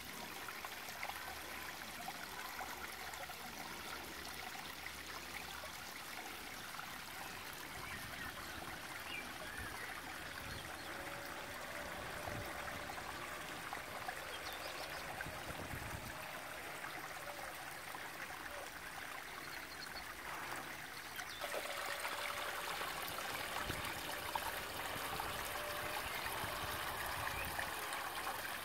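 Water running and trickling steadily, growing louder about three-quarters of the way through.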